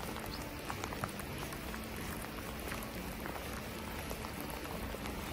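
Faint outdoor ambience at the water's edge: a steady soft hiss with scattered light ticks, and one short high chirp about half a second in.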